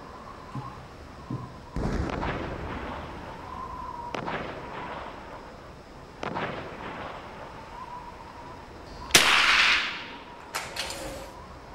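.22 LR Lee-Enfield No. 1 Mk III rifle firing four shots, about two to three seconds apart, each with a short echo off the covered firing line. The last shot is much the loudest and is followed by two sharp metallic clicks.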